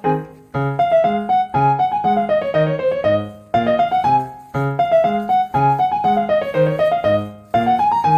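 Background piano music: a light, bouncy melody of quick notes over a steady bass.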